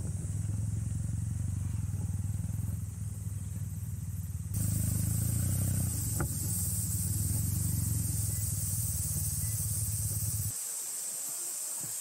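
Kawasaki W800's air-cooled parallel-twin engine running steadily as the motorcycle is ridden, heard from on the bike. It cuts off sharply near the end and gives way to a quieter steady hiss.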